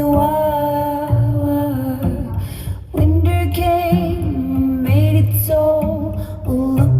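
A song with a woman singing held, gliding notes over a steady bass line, played back through a Fender Bluetooth speaker for a sound test.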